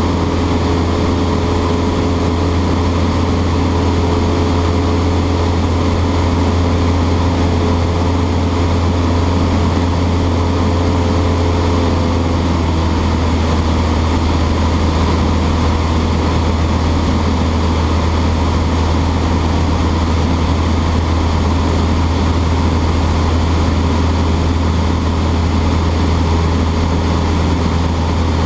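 Cessna 152's four-cylinder Lycoming engine and propeller droning steadily at cruise power, heard from inside the cabin. A faint higher hum fades out about halfway through.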